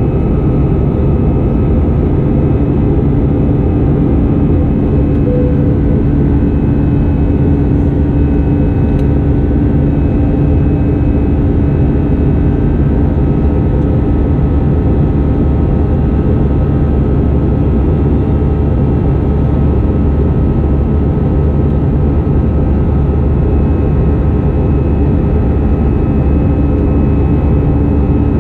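Steady cabin drone of an Airbus A320-214 in flight, heard from a window seat: the roar of air and its CFM56 turbofan engines, with a constant hum and several steady tones in it.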